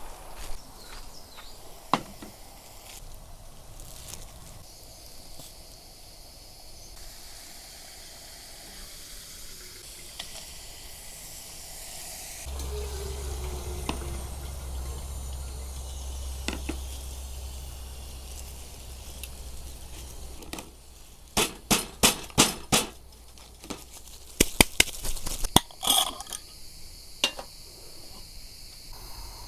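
Camp dishes and utensils clinking and knocking in two quick runs of sharp strikes, after several seconds of steady low hum.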